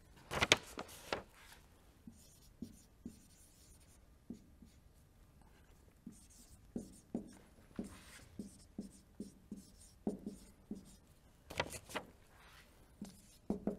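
Marker writing on a whiteboard: a string of short, irregular strokes and taps as words are written out, loudest about half a second in and again near the end.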